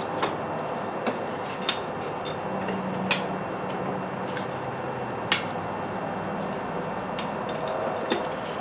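Scattered sharp clicks and light knocks, seven or so at irregular intervals, from tools and small-block Chevy engine parts being handled during head removal.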